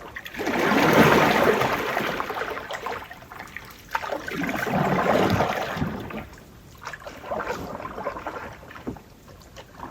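Canoe paddle strokes pulling through lake water: three swishing surges of water, roughly every three seconds, the first the loudest.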